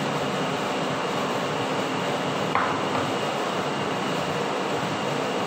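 Steady background hum, with a light clink of a plate being moved on the table about two and a half seconds in.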